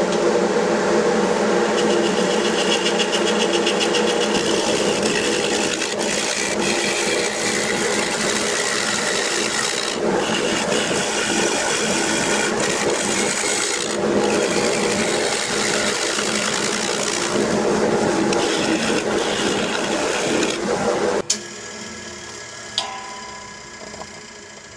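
A bowl gouge is cutting into a spalted, partly punky oak blank spinning on a wood lathe, peeling off layers to rough it round. This makes a loud, rough, continuous cutting noise over the lathe's running, with a few short breaks. About 21 seconds in the cutting stops abruptly, leaving a fading hum as the lathe winds down, and there is one sharp click shortly after.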